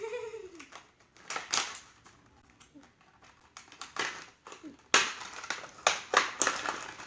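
Toy packaging crinkling and rustling as it is pulled and squeezed to free doll accessories. It comes in scattered bursts, sparse at first, then busier from about four seconds in.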